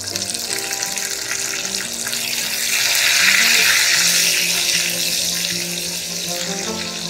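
Hot oil sizzling and spluttering as fresh curry leaves and green chilli hit it and are stirred with a wooden spatula in a kadai. The sizzle starts abruptly and swells to its loudest around the middle before easing. Soft background music plays underneath.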